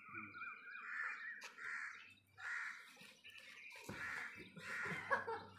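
Faint, harsh bird calls, repeated several times.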